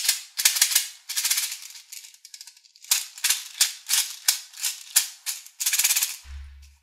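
Small plastic bottle of round plastic beads shaken by hand, the beads rattling in a run of short shakes, about three a second, with a brief pause around two and a half seconds in.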